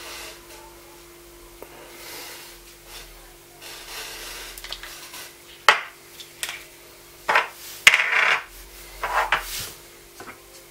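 Clear plastic BlenderBottle GoStak storage containers being handled and fitted together: soft rubbing at first, then a series of sharp clicks and knocks in the second half.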